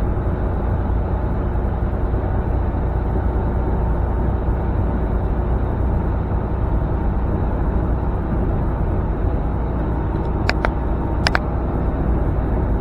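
Steady low drone of a semi-truck's diesel engine heard from inside the cab, with two short high beeps about ten and eleven seconds in.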